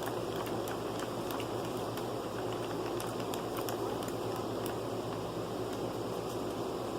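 Steady background noise and low hum, with faint scattered light clicks and no distinct event.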